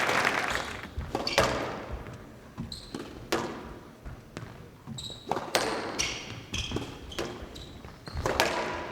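A squash rally: the ball knocked hard off rackets and the court walls again and again, every half second to a second, with shoes squeaking on the court floor between the shots. A wash of applause dies away in the first second.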